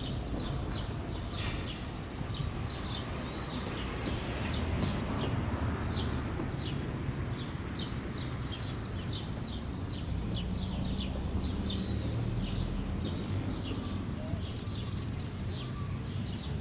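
Outdoor park ambience: a bird chirping repeatedly in short, falling high notes, two or three a second, over a steady low background rumble. One brief sharp sound about ten seconds in.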